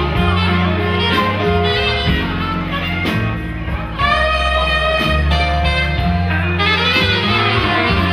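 Live jazz: a saxophone playing a melody over a plucked upright double bass.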